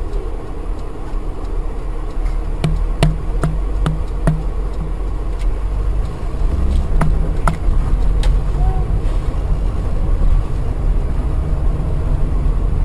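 Steady car engine and road rumble heard inside a moving car's cabin. A few seconds in come about five evenly spaced clicks, roughly two and a half a second, and a few more single clicks follow later.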